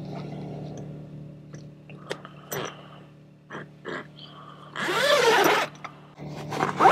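Morning bird calls: a few short chirps, then a loud harsh call about five seconds in and another starting near the end, over a faint steady low hum.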